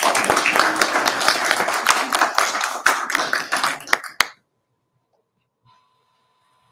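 Applause, many rapid claps, that stops abruptly about four seconds in.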